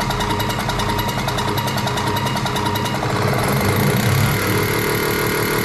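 A machine running with a rapid, even clatter of about ten beats a second. About three seconds in, the clatter gives way to a steadier drone with several held pitches.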